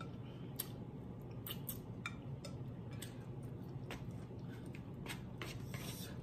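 Close-miked chewing and mouth sounds while eating: irregular soft wet clicks and smacks, a few per second, over a low steady hum.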